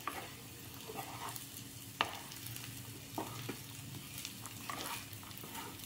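Wooden spatula stirring cooked rice in a non-stick kadai, with soft scraping and a few light knocks of the spatula on the pan, the sharpest about two seconds in. The rice sizzles faintly in the ghee as it is turned.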